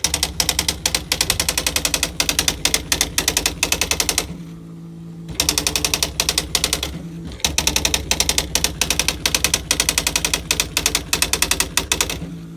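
Smith Corona Deville 125 electric typewriter typing automatically after its Code+Q function is started: a fast, even machine-gun run of character strikes, about nine a second, broken by two short pauses in which only the motor hums.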